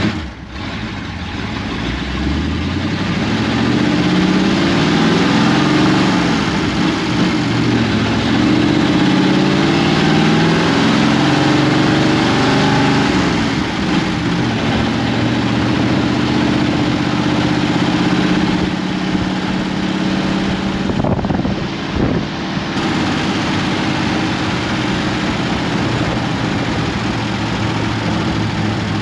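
Ford 59AB flathead V8 running through open straight pipes, heard from inside the cab as the car pulls away. The engine note climbs in gear, drops as he shifts, climbs again, then settles into a steady cruise after a second shift.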